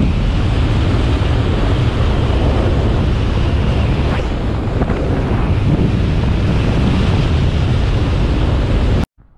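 Loud wind buffeting the camera microphone of a speedflyer in fast flight, a steady rushing noise heaviest in the low end. It cuts off abruptly near the end.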